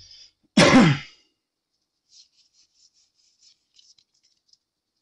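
Pokémon trading cards being handled and shuffled from hand to hand: faint, scattered light ticks and rustles. They follow a brief louder sound with a falling pitch about half a second in.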